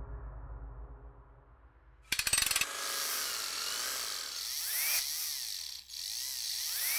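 Robot-transformation sound effect. A low ringing tone fades out, then about two seconds in a burst of rapid ratcheting clicks sets off a hissing mechanical whir with sweeping pitch glides.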